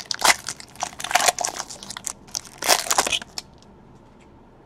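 Foil trading-card pack wrapper being torn open and crumpled by hand: a quick run of crinkling, crackling rustles that stops about three seconds in.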